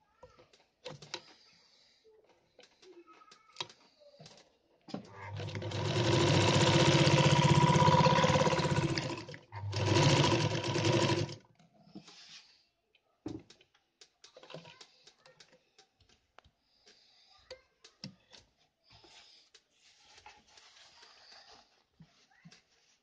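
Kehler Altenberg sewing machine stitching through heavy canvas with thick thread and an industrial needle: a steady run of about four seconds starting about five seconds in, a brief stop, then a shorter second run. Faint clicks and handling sounds before and after.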